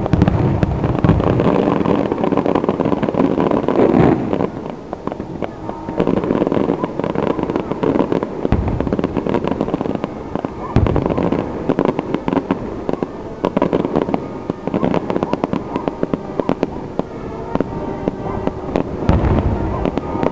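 Aerial firework shells bursting: dense, rapid crackling throughout, with several deep booms spread through, one near the start and more near the middle and the end.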